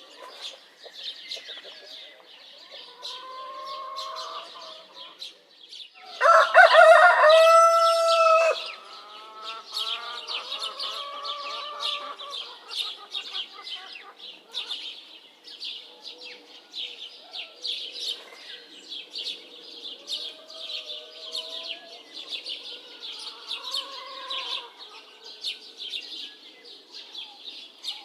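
A rooster crowing loudly once, about six seconds in, for around two seconds, with fainter crows from farther off at other moments. Small birds chirp continuously throughout.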